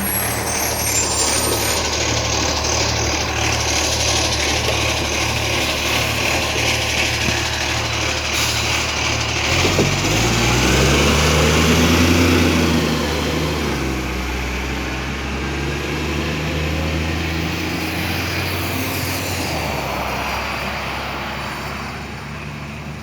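Iveco ACCO garbage truck's diesel engine running, its pitch climbing in steps through the gears from about ten seconds in as the truck accelerates, then easing off and growing quieter near the end.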